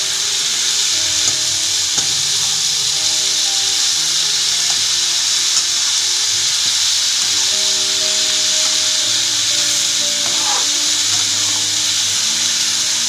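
Diced potatoes and green beans stir-frying in hot oil in a kadhai: a steady sizzle as a metal spatula stirs them through.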